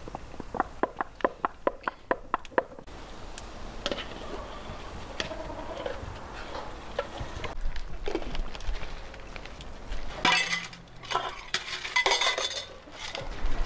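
Cookware clatter: a quick run of about a dozen sharp clicks as a spice jar is tapped over a pot of rice, then a metal slotted spoon scraping rice out of a steel bowl, and loud clinks of metal and a glass lid on the pot near the end.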